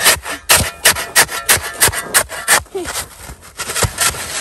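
Crusted snow crunching in a quick, even run of sharp strokes, about three a second.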